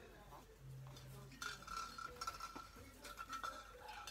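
Faint small clicks and clinks of a hand-held decoration being handled and fitted into place. A faint steady high tone sets in about a second and a half in.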